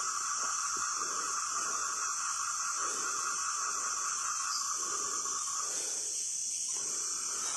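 Insect chorus of crickets and other insects, a steady high-pitched trilling in several layers. The lowest layer drops out about six seconds in.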